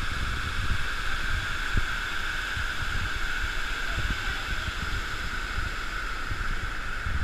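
Steady rush of hot-spring waterfalls pouring into a pool, with irregular low rumbling underneath.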